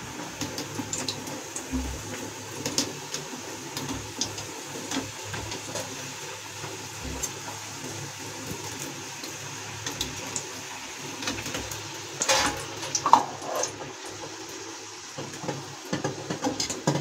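Dough katori deep-frying in hot oil in a metal kadhai: a steady bubbling sizzle. Scattered clinks of a wire skimmer against the pan run through it, with a louder clatter about twelve seconds in and a run of clinks near the end.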